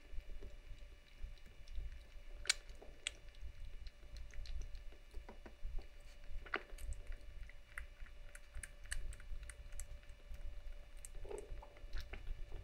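Young kitten suckling milk from a nursing bottle: faint, irregular little clicks and smacks of sucking and gulping.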